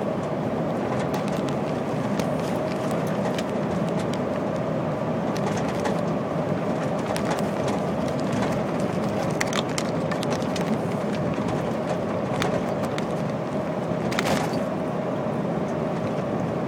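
Inside the cab of a MAN TGA 480 truck on the move: a steady drone of its straight-six diesel engine and road noise with a held hum, and frequent light clicks and rattles. A brief rush of noise comes about fourteen seconds in.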